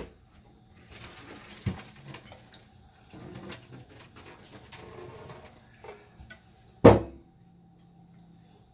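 Kitchen handling sounds: small clinks and rustles of pots and utensils over a low steady hum, then one sharp, loud knock of a pot or dish being set down about seven seconds in.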